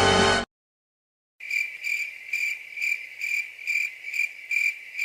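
Crickets chirping, the stock 'awkward silence' sound effect: a high, even chirp repeating about twice a second, starting about a second and a half in.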